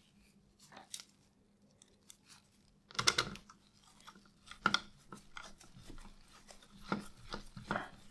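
A screwdriver turning small screws to fasten a circuit board into a toy phone's plastic housing: irregular clicks and short scrapes of plastic. The loudest comes about three seconds in.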